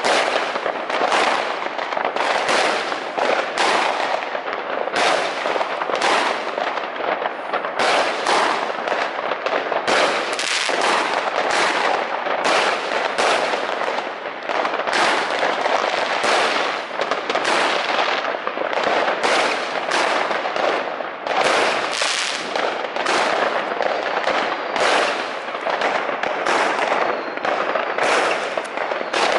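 Many fireworks going off at once: a dense, continuous barrage of bangs and crackles with no gaps.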